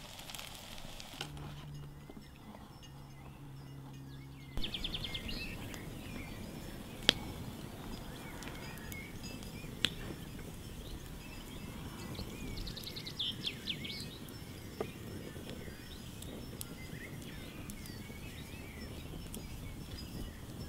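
Outdoor ambience with birds calling now and then in short trills. A few single sharp knocks come at wide intervals. The first few seconds hold a low steady hum that changes pitch in steps.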